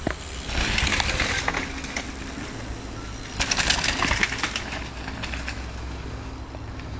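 Two mountain bikes pass close by one after the other, each a rush of tyre noise over dirt and leaf litter lasting about a second, with small scattered clicks between.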